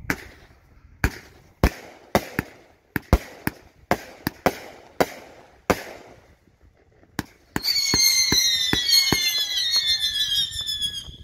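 A 500-gram consumer fireworks cake firing. First comes a run of sharp bangs, about two a second, as shots launch and burst. About seven and a half seconds in, several whistling shots go up together, their shrill whistles slowly falling in pitch over dense crackling.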